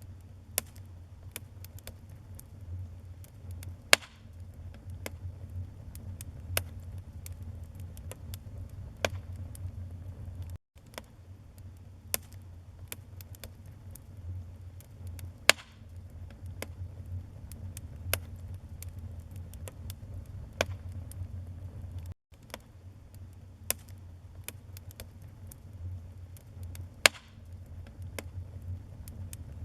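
Wood fire crackling in a fireplace: scattered sharp pops and snaps over a low, steady rumble of flames, with three louder pops. The sound cuts out for a split second twice.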